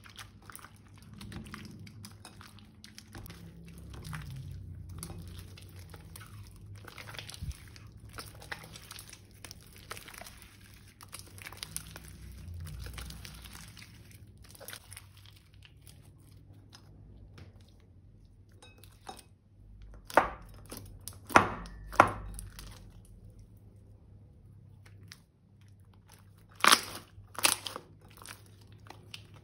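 Purple glitter slime being stretched and squished by hand in a glass bowl: a run of small sticky crackles and clicks, then several loud, sharp pops as the slime is pressed down, three about two-thirds of the way through and two more near the end.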